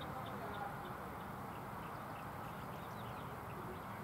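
Steady outdoor background noise with a low rumble like wind on the microphone, and a bird chirping in short, high notes repeated about three times a second.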